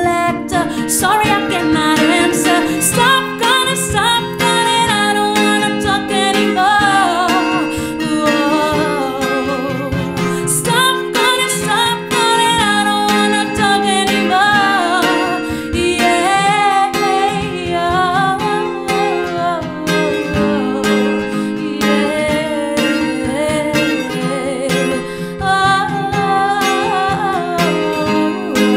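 Acoustic guitar strummed as accompaniment to a woman singing, her voice sliding and wavering through long held runs.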